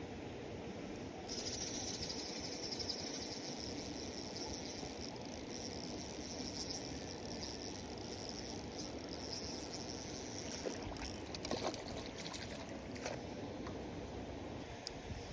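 Moving water, a steady hiss high in pitch that starts suddenly about a second in and fades after about ten seconds, followed by a few sharp clicks.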